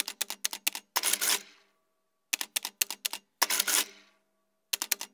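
Typewriter sound effect: runs of four or five quick key clacks, each run followed by a longer noisy stroke of about half a second, the pattern repeating roughly every two and a half seconds.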